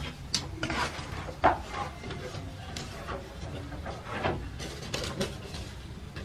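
A metal baking tray scraping and knocking against the ledge of a wood-fired brick oven as it is shifted with a long iron hook: irregular scrapes and clicks, the loudest knock about a second and a half in, over a low steady rumble.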